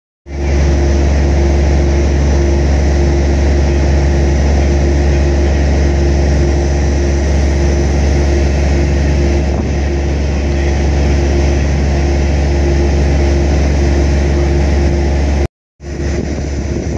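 A heavy diesel engine runs steadily during a crane lift, giving a deep rumble with a constant hum over it. It breaks off for a moment near the end.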